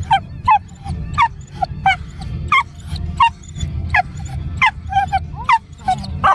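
Excited dog yelping and whining in short high-pitched cries, about two a second, over a steady low rumble.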